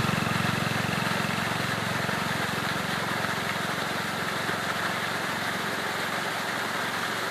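A small engine running steadily, a low, fast-pulsing hum with a hiss over it.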